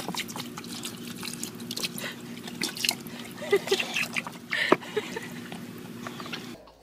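Water splashing and dripping in a child's plastic water table as a baby paddles in it and a boxer dog drinks from it: many small, irregular splashes over a steady low hum.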